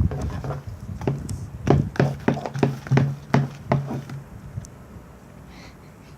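Slime mixture being stirred in a bowl: a rhythmic run of knocks, about three a second, that stops about four seconds in.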